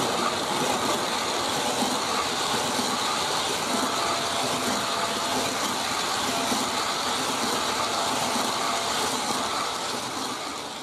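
G scale model freight train running past on garden railway track: a steady rolling noise of the cars' wheels on the rails, easing slightly near the end.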